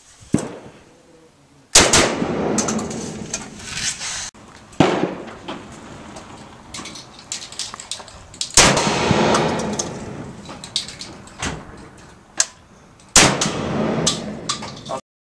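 Saiga 12, a Kalashnikov-pattern semi-automatic 12-gauge shotgun, fired one shot at a time a few seconds apart, about five loud shots in all. Each sharp report trails off over a second or two. The sound cuts off abruptly just before the end.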